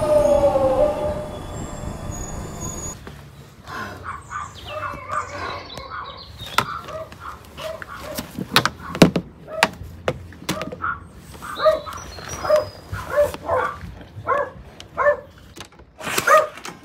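Underground train running noise for about the first three seconds, then, after a cut, a dog yipping and barking repeatedly, about twice a second, with sharp clicks of a key working the front-door lock among the barks.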